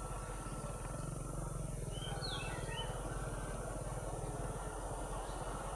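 Diesel engine of a CC 202 diesel-electric locomotive running steadily with a low, pulsing throb. Short bird chirps come in about two seconds in.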